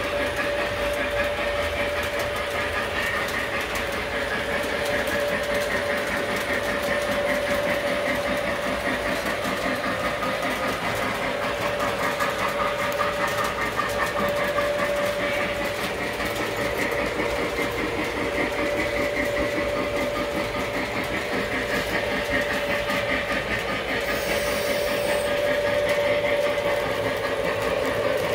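Lionel model train running steadily on its track: a constant motor whine over the fine rattle and clickety-clack of the wheels on the rails.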